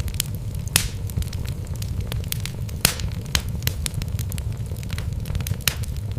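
Wood logs burning in a fireplace, with a steady low rumble of the flames and irregular sharp crackles and pops, the loudest a little under a second in and near three seconds in.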